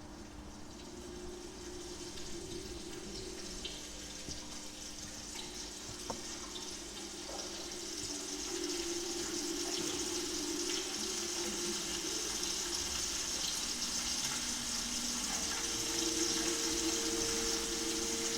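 Recorded ocean sound, a rushing, water-like hiss that swells steadily louder, with a few scattered clicks, over quiet sustained low tones from the ensemble. A new held tone enters near the end.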